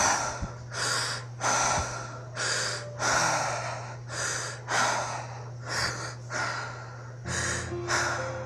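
A person breathing hard: short, loud, rasping breaths in and out, about two a second, over a steady low hum.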